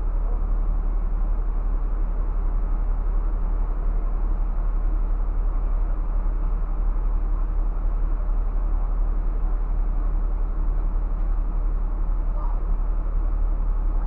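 Scania coach's diesel engine idling with a steady low drone, heard from inside the driver's cab.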